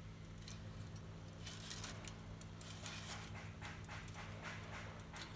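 Metal wire hangers clicking and scraping along a metal clothes rail as hanging lengths of fabric are pushed along it: a quick run of irregular clinks that gets busier after about a second and a half.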